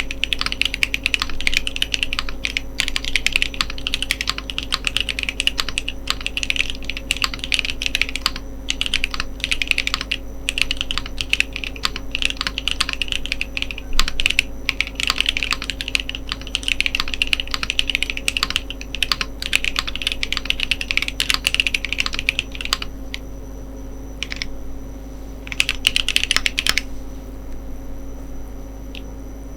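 Steady, fast typing on a TGR Jane v2 ME mechanical keyboard with JWK Ginger Milky switches in an aluminum plate: a dense run of clacky keystrokes that stops for a couple of seconds twice near the end.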